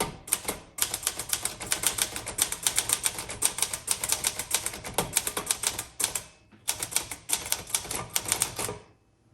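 1964 Olivetti-Underwood Lettera 32 portable typewriter being typed on at a quick, steady pace: a rapid run of keystrokes with the typebars striking the platen, and a brief pause about six seconds in.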